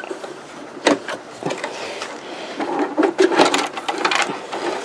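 Thick denim being freed and pulled out from under the presser foot of a Brother CE8080PRW computerized sewing machine: a couple of sharp clicks, then a stretch of rustling and scraping with more clicks as the fabric and thread are drawn off the machine bed.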